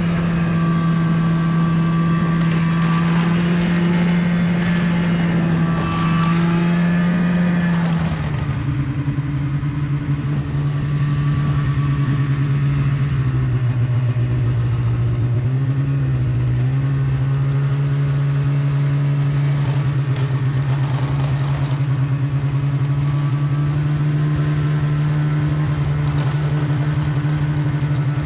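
Two-stroke snowmobile engine running steadily under way. About eight seconds in its pitch drops as the machine eases off, wavers briefly, then holds steady at a somewhat lower pitch.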